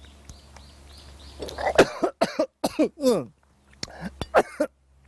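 A man coughing several times with short, falling vocal sounds, starting about a second and a half in, after a sip of sharp, pungent homemade vinegar.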